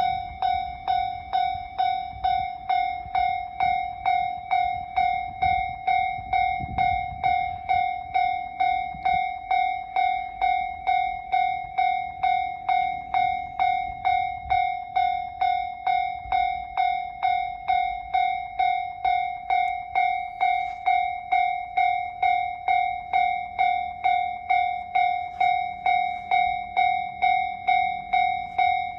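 Japanese railway level crossing warning bell ringing steadily, about three strikes every two seconds.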